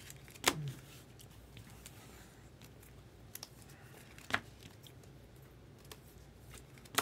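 Trading cards and clear plastic card sleeves being handled: faint rustling with a few sharp plastic clicks, the loudest about half a second in, another about four seconds in and one at the end.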